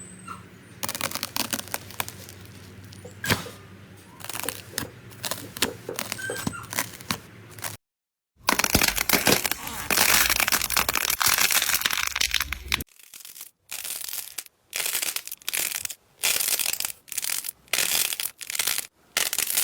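Slime being pressed and squeezed in the hands, making crackling, crunching sounds, in several short stretches with abrupt cuts between them: scattered clicks at first, then dense crackling, then short squeezes about once a second.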